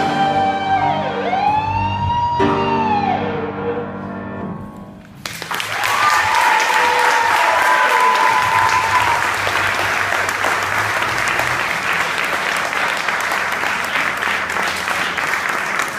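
A student band of piano, electric guitars and drums holds its final chord, with one note sliding up and back down as it rings out and fades. About five seconds in, the audience breaks into applause and cheering that continues to the end.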